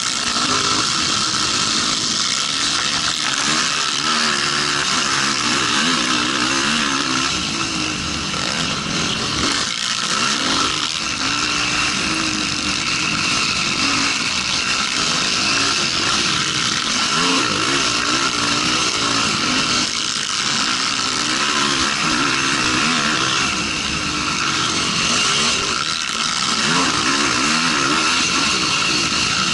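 Racing quad's engine heard from a camera mounted on the quad, revving up and down continuously as it accelerates and backs off around the track, over a dense rush of engine and track noise.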